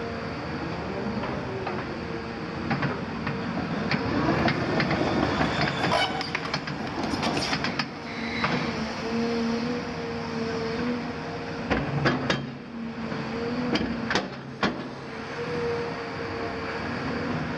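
Caterpillar 340F hydraulic excavator running, its diesel engine and hydraulics giving a steady whine, as the boom and bucket swing. Scattered clanks and knocks of metal and rubble, with a dense clattering stretch from about four to eight seconds in and sharp knocks a few seconds later.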